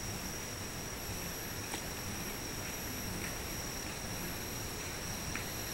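Steady outdoor night background noise with a faint high-pitched steady tone and a few soft clicks.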